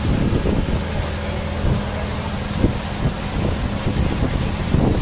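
Outrigger boat's engine running with a steady hum, with wind buffeting the microphone as the boat moves.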